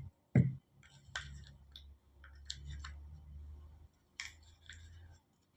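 Small plastic clicks and scrapes as the snug-fitting plastic cover of a VW microbus seat-belt retractor is worked by hand to pry it loose, with one sharp click about half a second in. A low rumble of handling noise runs underneath.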